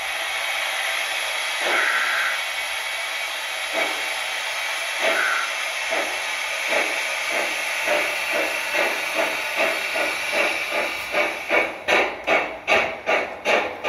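A 1:32-scale model steam tank locomotive's sound generator plays steam hiss with exhaust chuffs as the engine starts off. The chuffs come slowly at first, then quicken to about three a second and grow louder as the train gathers speed.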